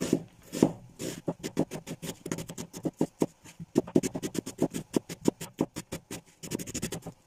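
Chef's knife slicing an onion into half-rings on a plastic cutting board: quick, even strokes, each ending in a sharp knock of the blade on the board, several a second.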